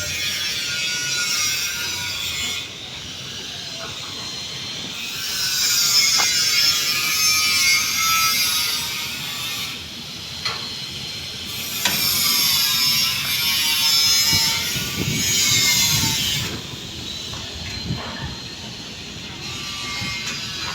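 A saw cutting wood for beam formwork, in several passes of a few seconds each with short pauses between, and a few knocks between cuts.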